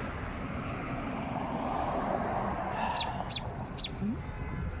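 A bird gives three short, high chirps that fall in pitch, about three seconds in, over a steady outdoor background hiss.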